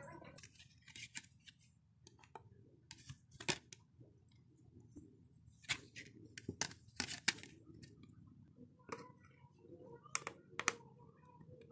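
Faint, irregular sharp clicks and snips, about a dozen spread out with short quiet gaps, from small tools and parts being handled during hand repair of a phone.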